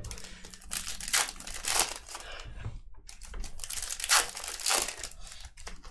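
Foil trading card pack wrappers crinkling and tearing as packs are ripped open by hand, in a string of short rustles.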